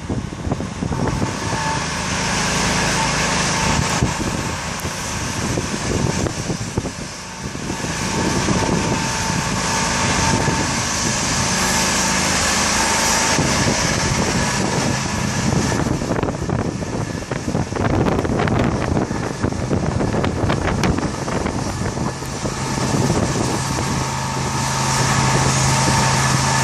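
An engine runs steadily under a hiss of high-pressure water spray as metal cladding is pressure-washed from a truck-mounted access platform. A low hum grows louder near the end.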